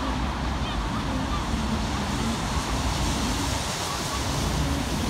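Steady road-traffic noise with wind buffeting the microphone, as a trolleybus drives past along the road.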